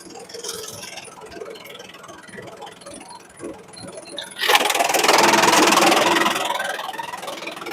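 Machine noise from the bamboo shredder. About halfway through, a loud rushing noise starts suddenly, then fades away over a few seconds.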